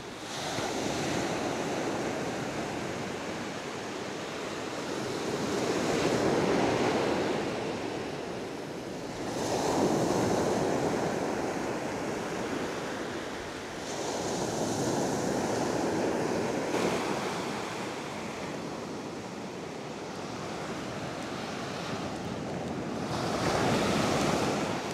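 Sea waves breaking and washing up a sand-and-shingle beach, rising and falling in surges every few seconds.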